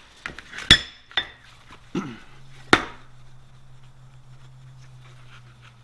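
A cold-blued steel plate being handled and rubbed with fine steel wool on a plastic tray: light scrubbing with several sharp knocks as the plate meets the tray, the two loudest about two seconds apart. A low steady hum comes in about two seconds in.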